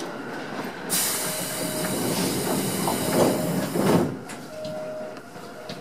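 Odakyu 1000 series electric train running slowly over pointwork, heard from inside the car. About a second in, a loud hiss of escaping air starts suddenly, lasts about three seconds and cuts off abruptly.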